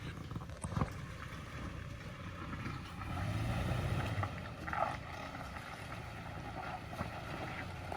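Toyota Tacoma pickup engine running low and slow over off-road ground, the engine swelling for about a second a third of the way in, with a few knocks and some wind on the microphone.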